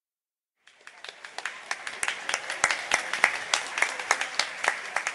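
Audience applauding in a hall, the clapping starting suddenly under a second in, building up, and thinning out near the end, with single sharp claps standing out above the rest.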